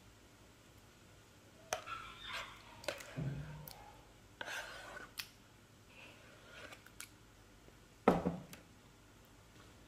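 Thick yoghurt being added to a glass bowl: a series of short taps and scrapes against the glass with soft wet plops, the loudest a dull thud about eight seconds in.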